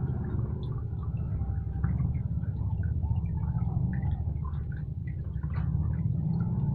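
Washing machine running with water in the tub: a steady low motor hum under irregular water splashing and gurgling. The machine is working again after its rat-chewed wiring was rejoined.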